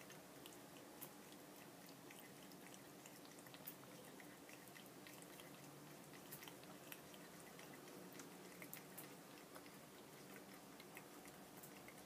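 A cat lapping water from a tap's spout: faint, irregular wet clicks and drips.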